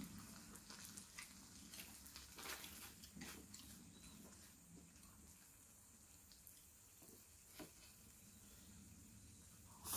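Faint bubbling of seasoned webfoot octopus simmering in a frying pan over a gas camping stove, with a few light clicks of chopsticks against the pan.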